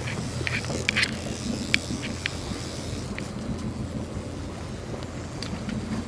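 Charter fishing boat's engine running steadily under way, with wind noise on the microphone. A few short sharp clicks and knocks come in the first couple of seconds.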